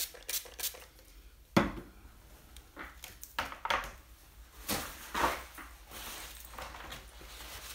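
Watercolour palette being cleaned and handled: a sharp knock about one and a half seconds in, then scattered clicks and knocks, with a soft steady hiss near the end.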